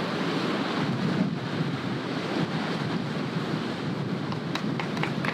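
Steady wind buffeting the microphone over surf washing on a beach. Guests' clapping starts near the end.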